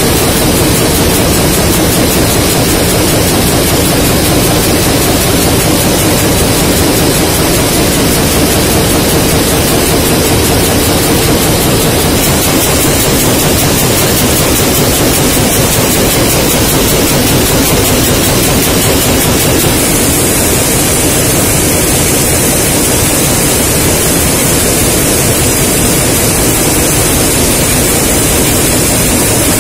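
Loud, steady machine din of an aluminium can production line, with empty cans moving along conveyor guide rails and a mesh belt. The noise is even throughout, with no separate knocks standing out, and its top end brightens a little twice.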